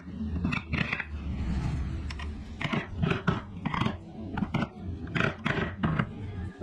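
Carving tool working wood: an irregular series of sharp cutting or tapping strokes, about ten of them, mostly in the second half, over a low steady hum.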